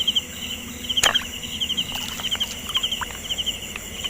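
Insects chirping in short repeated pulse groups, with a sharp click about a second in and a few faint short chirps after it.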